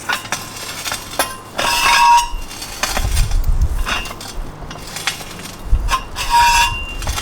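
Metal clinks, knocks and scrapes as a steel ground screw is turned into the ground by hand with a manual installation bar. Two louder ringing scrapes come about 2 seconds in and near the end, with wind buffeting the microphone in gusts.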